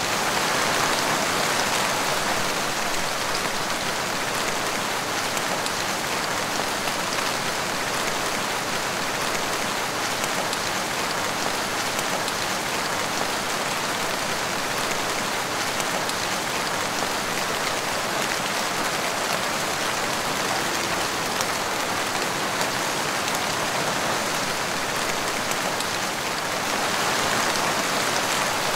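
Steady rain falling on a wet tiled porch floor: a dense, even patter of drops splashing on the tiles.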